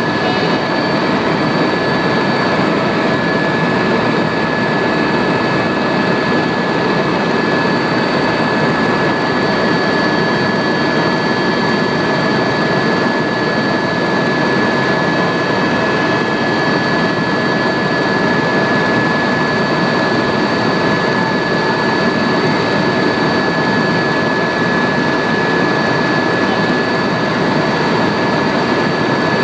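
Loud, steady helicopter noise heard from inside the cabin in flight: the engine and rotor running evenly, with a steady high-pitched whine over the roar.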